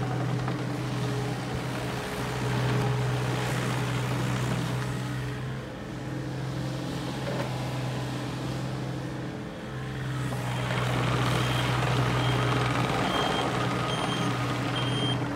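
A Takeuchi TB235 mini excavator's diesel engine running steadily under load as the machine turns on its tracks, dipping briefly a few times. Near the end there is a swell of hydraulic and track noise, and short high beeps repeat about once a second.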